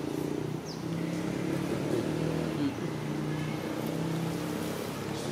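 A motor vehicle's engine running steadily with a low hum that wavers slightly in pitch.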